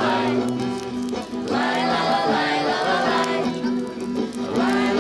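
Music: an instrumental passage of a song, with held chords changing every half second or so.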